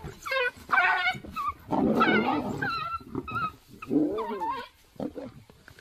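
Animal cries: a series of short, pitched calls that rise and fall, loudest in the first half and dying away near the end.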